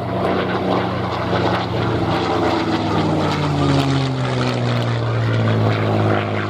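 Rolls-Royce Merlin V12 engines of P-51 Mustangs running loud in a fly-past. The engine note falls in pitch over a few seconds as the aircraft go by.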